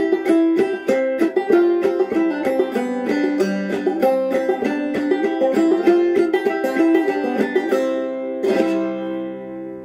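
Five-string banjo played clawhammer style in C tuning (gCGBD), a quick run of struck notes and brushed strums. Near the end the tune closes on a last strummed chord that rings out and fades.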